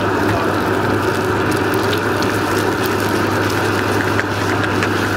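Gas burner running with a steady rushing flame under a frying pan, while eggs fried with lamb confit sizzle and a wooden spatula stirs and scrapes them, giving scattered light ticks.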